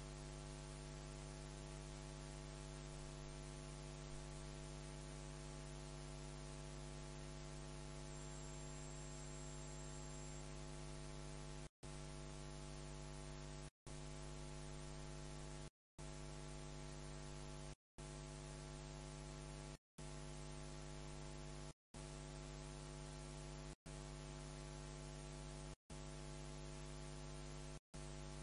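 Steady electrical mains hum with a hiss in the recording. From a little before halfway it cuts out to dead silence for a moment about every two seconds.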